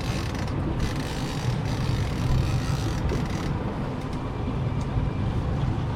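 A boat's engine running steadily at low speed, a low even drone mixed with wind and water noise.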